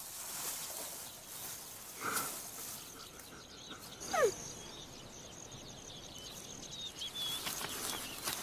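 Open grassland ambience with faint high chirps and a steady high insect-like hiss, broken about four seconds in by one short, sharp animal call that falls steeply in pitch.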